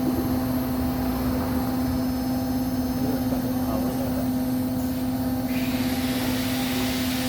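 Bosch washing machine running on test with its drum on a custom-made steel square-tube spider: a steady motor and drum hum at constant pitch. A hiss joins it about two thirds of the way in.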